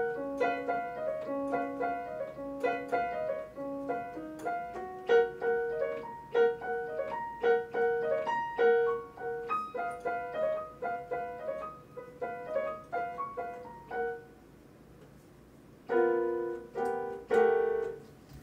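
Electronic keyboard played with a piano sound: a quick melody over lower notes. About 14 seconds in it goes nearly quiet, then three loud chords end the piece.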